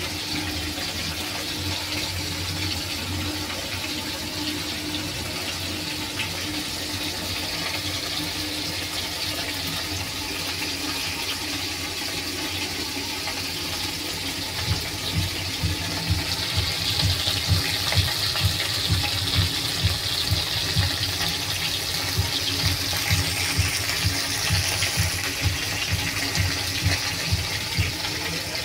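Fish pieces frying in hot oil in a kadhai, a steady sizzling hiss. From about halfway on, a low rhythmic pulsing about twice a second runs underneath.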